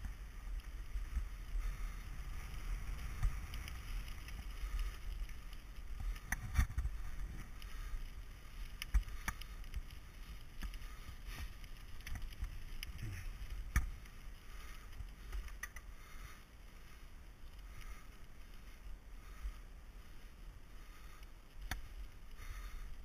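Mountain bike rolling along a gravel forest trail: a steady low rumble of tyres on the dirt, broken by scattered sharp knocks and rattles as the bike goes over bumps, a few of them standing out.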